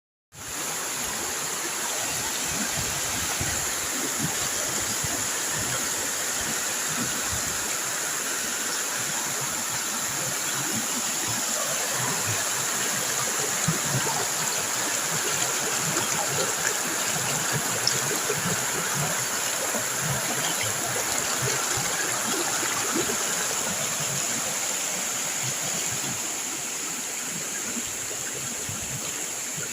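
Small waterfall: water pouring and splashing in a steady rush, easing off slightly near the end.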